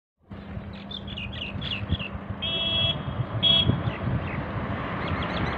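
Small birds chirping in quick repeated notes, over a steady outdoor background rush, with two short held high tones a little after the middle.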